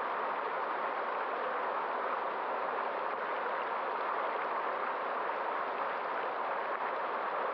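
Steady, unbroken rush of running water from a stream.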